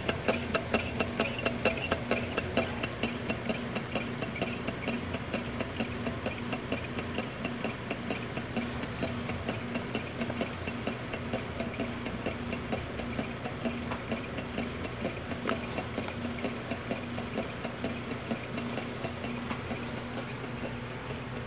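Low-temperature Stirling engine (Stirlingtech LT001) running on a cup of hot water, its flywheel, rods and pistons clunking in an even rhythm of about three clicks a second.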